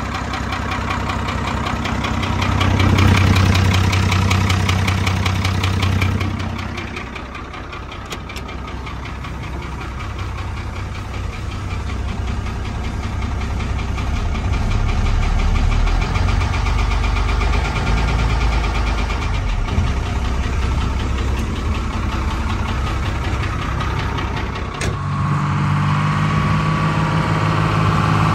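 GMC Toroflow 478 cubic-inch V6 naturally aspirated diesel running, just brought back to life after sitting for years on 10-year-old fuel. It gets louder for a few seconds, then settles and slowly builds again. The sound changes abruptly near the end.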